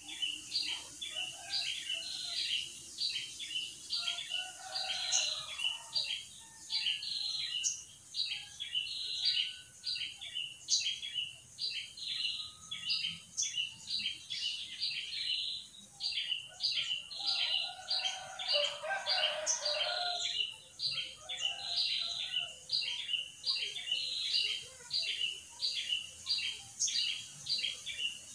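Rapid, continuous chirping calls, about three a second, over a steady high hiss, starting suddenly. Lower, warbling calls join in about five seconds in and again near twenty seconds.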